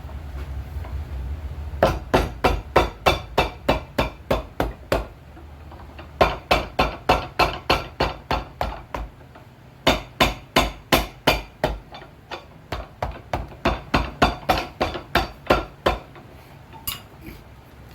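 A cobbler's hammer striking a shoe in quick, sharp blows, about four a second. It comes in four runs with short pauses between them, and a single strike near the end.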